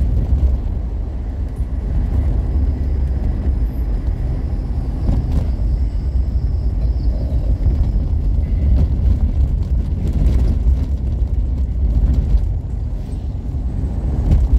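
Steady low rumble of a road vehicle on the move: engine and road noise without a break.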